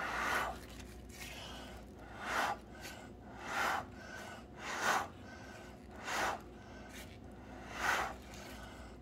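A person blowing short, strong puffs of breath by mouth onto wet acrylic pour paint, six puffs about a second or so apart, spreading the paint outward across a coaster in the blow-out technique.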